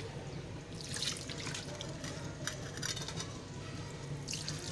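Wet scrubbing of a soapy tawa with a Scotch-Brite foam scourer, rubbing off the last burnt residue. Swishing strokes swell about a second in and again near the end.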